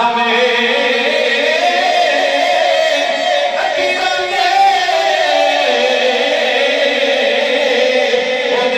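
A male reciter's voice chanting a long, drawn-out melodic line in the style of Urdu devotional recitation. The pitch wavers and slides slowly, with no clear spoken words.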